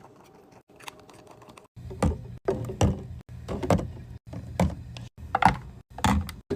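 Items being set into a mini fridge: faint clicks at first, then from about two seconds in a run of separate knocks and clatter roughly every half second, over a low steady hum.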